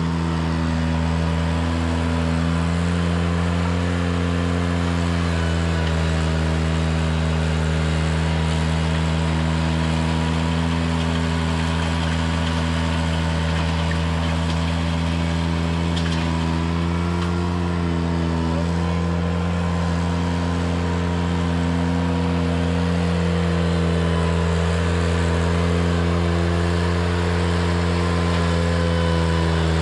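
Ventrac 4520 compact tractor's engine running steadily at a constant speed, with a slight waver in pitch now and then.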